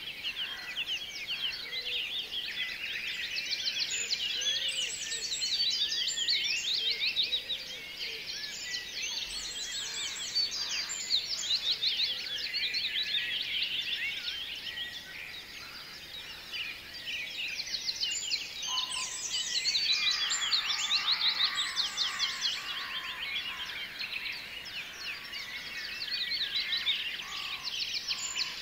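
A group of otters chirping and squeaking non-stop in many overlapping high calls while they crowd a bowl of fish: the squabbling, begging chatter of otters at feeding time. The chatter swells twice and eases briefly about halfway through.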